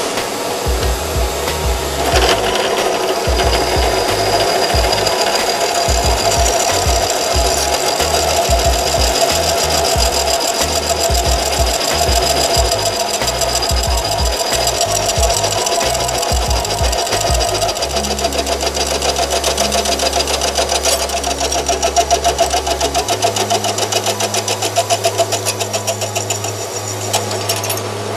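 Drill press running steadily as a twist drill bores into thick steel plate, with the bit cutting metal. Music plays underneath.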